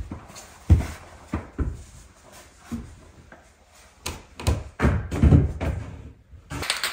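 Irregular thumps and knocks of footsteps climbing bare OSB stair treads, mixed with the clatter of vinyl flooring planks knocking against the steps as they are carried up and set down. Near the end a fast run of light clicks begins.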